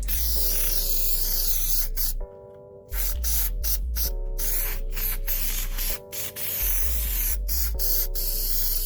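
Aerosol can of heavy-duty automotive headliner spray adhesive hissing in long continuous sprays. The spray stops briefly about two seconds in and again about six seconds in. Background music plays throughout.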